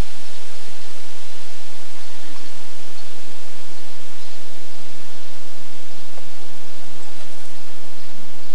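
Loud, steady hiss that covers the whole sound track without change, typical of noise on an old, digitized camcorder tape.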